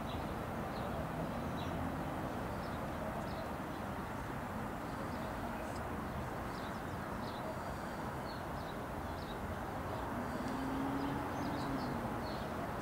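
Steady hum of distant city traffic, with small birds chirping briefly now and then and a faint engine drone that swells and fades about ten seconds in.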